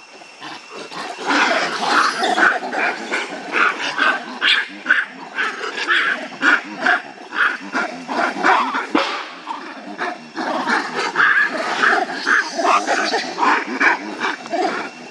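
Macaques calling in a rapid run of short, harsh barks and screeches, several a second, starting about a second in with a brief lull partway through: threat calls in a stand-off between two monkey troops.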